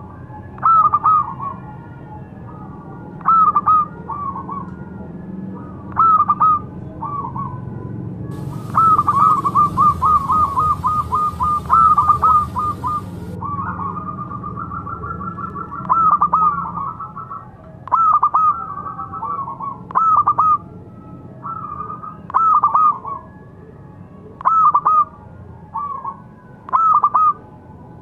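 Zebra dove (perkutut) cooing: short trilled coo phrases repeated every two to three seconds, with a faster unbroken run of notes about nine to thirteen seconds in, accompanied by a faint hiss.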